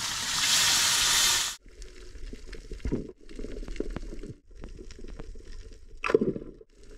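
Loud hiss of lapu-lapu (grouper) slices cooking in a hot wok for about a second and a half, cut off abruptly. Then muffled underwater sound with a low rumble and scattered faint clicks, broken by several abrupt cuts, with a louder brief swish about six seconds in.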